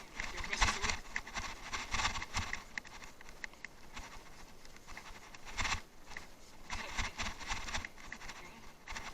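Bicycle rattling over rough off-road ground: a run of irregular clicks and knocks with bursts of tyre noise every second or so.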